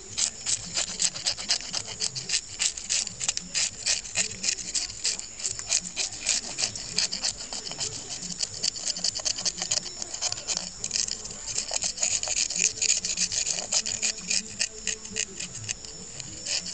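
Knife blade scraping the scales off a fish in quick, repeated strokes, each a short rasping tick.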